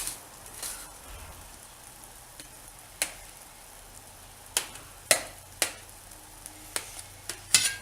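Knife clicking sharply against the dish, eight or so separate taps, as a steamed besan dhokla is cut into pieces. A faint steady hiss runs underneath.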